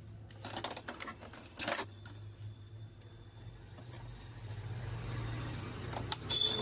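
Small plastic clicks and knocks from handling an inkjet printer's ink damper with a syringe pushed onto it, drawing air out of the ink line, over a low steady hum that grows a little louder in the second half.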